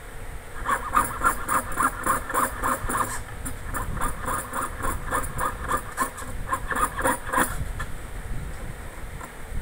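Jeweler's saw blade cutting through sheet metal in quick, even strokes, about four or five a second, stopping near the end.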